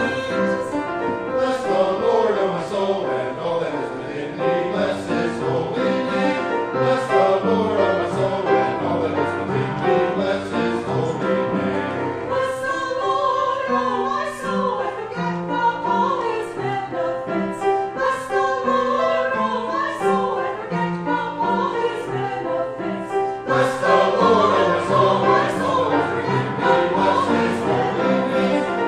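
Choir singing a church anthem or hymn with instrumental accompaniment, growing fuller about two-thirds of the way through.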